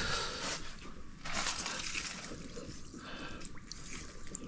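Water sloshing and dripping in a few irregular splashes.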